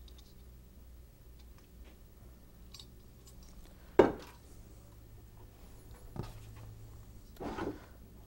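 Light handling of a finned metal ozone reaction-chamber cathode assembly, with one sharp knock about four seconds in as it is set down on a countertop, and a short rustle near the end.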